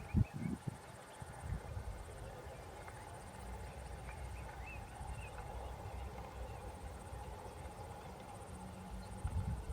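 Weaver birds giving faint, scattered short chirps over a steady, pulsing high insect buzz. Low thumps come just at the start and again near the end.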